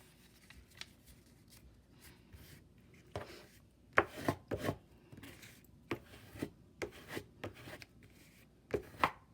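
Hands handling paper: a series of short, irregular rubs and taps that start about three seconds in, as a strip of adding machine tape is pressed and smoothed onto a paper tag.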